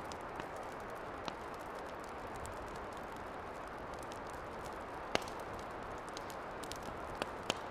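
Campfire burning with a steady hiss and a few sharp pops and crackles, the loudest about five seconds in and two more close together near the end.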